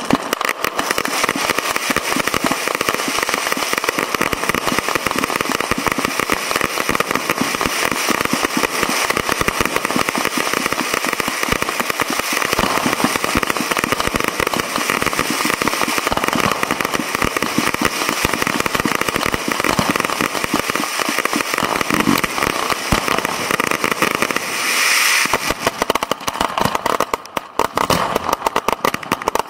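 Professional firework cakes and fountains firing at close range: a dense, continuous barrage of launch bangs and crackle. About 25 seconds in there is a short loud hiss, and after it the bangs come further apart.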